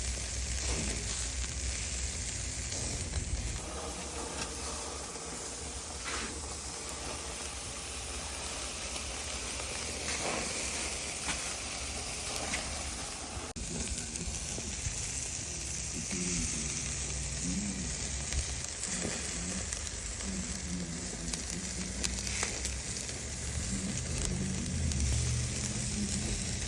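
Chicken wings sizzling with a steady hiss. Faint voices murmur in the background in the second half.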